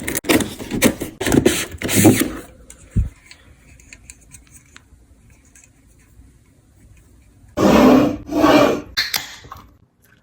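Beer can handling and beer being poured into a glass: a run of short noisy bursts and clicks for the first two and a half seconds, then, after a quiet stretch, two dense bursts of noise a little before the end.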